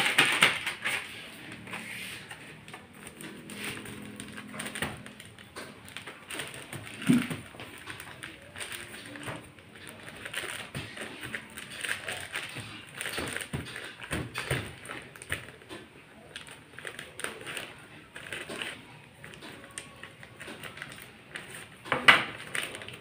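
Kitchen handling sounds: a paper packet rustling and being handled, with scattered light clicks and knocks. A sharper knock comes about seven seconds in and another near the end.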